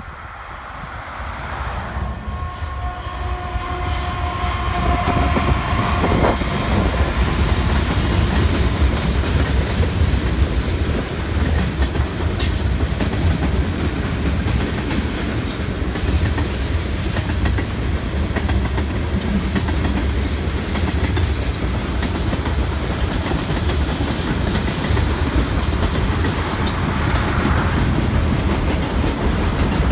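Diesel-hauled BNSF freight train passing close by. The locomotives' rumble grows louder over the first several seconds, with a held two-note tone for a few seconds near the start. After that comes the steady rumble and clickety-clack of freight cars rolling past, with occasional sharp clicks from the wheels.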